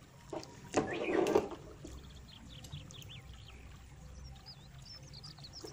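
Small electronic modules being handled and pressed onto a circuit board, a brief rustle and click about a second in. After that, small birds chirp faintly over a low steady hum.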